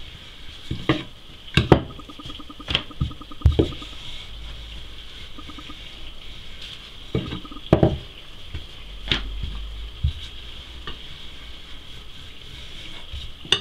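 Wooden rolling pin working a round of dough on a floured wooden board: about eight scattered knocks and thumps as the pin is pushed, lifted and set down, with short rattling runs as it rolls, over a steady background hiss.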